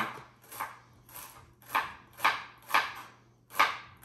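Chef's knife chopping celery on a plastic cutting board, an even rough chop of about two strokes a second.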